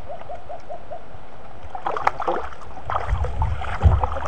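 Splashing and knocks as a hooked fish thrashes at the surface while it is hauled to the bank, loudest near the end, over the steady rush of the flowing river. In the first second, a bird calls in a quick run of short notes.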